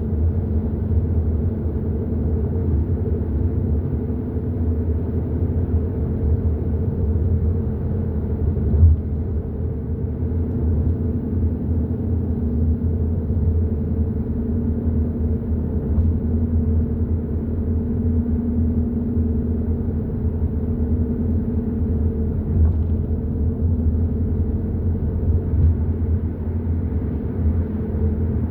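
Hyundai i30 N Line driving at a steady cruise: a constant low road rumble with a steady engine and drivetrain hum. There is a single brief bump about nine seconds in.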